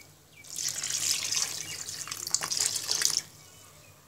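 Coconut milk poured into a hot kadai of chicken curry, a hissing, splashing pour with crackles that stops suddenly about three seconds in.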